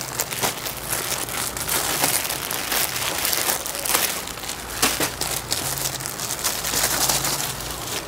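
Packaging of a packed saree crinkling and rustling as it is torn open and the saree unwrapped, a dense run of irregular crackles.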